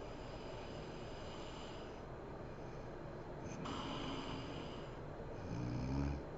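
A sleeping woman's heavy breathing: a long breath a little past halfway, then a short low snore near the end, the loudest moment, which stops abruptly.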